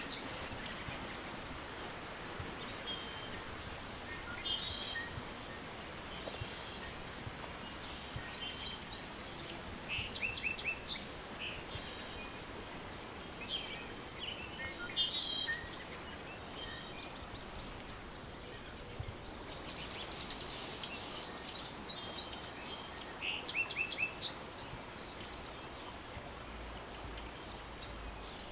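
Wild birds singing over a steady background hiss, in spells of chirps and fast trilled phrases that come and go several times.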